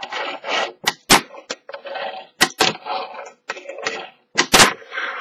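Fingerboard rolling and scraping across a table under the rider's fingers, with about eight sharp clacks as the little board is popped into jumps and lands again.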